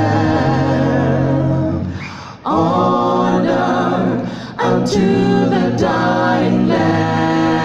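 An a cappella vocal group singing a gospel hymn in long sustained chords without clear words. The voices break off briefly twice, about two and a half and four and a half seconds in, then settle into a held chord near the end.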